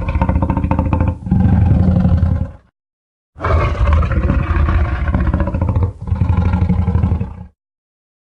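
Layered monster sound effect of deep, rasping roars and growls mixed from film creature and dinosaur recordings: one long roar ending a couple of seconds in, then after a short pause a second, longer roar-and-growl sequence that stops about a second before the end.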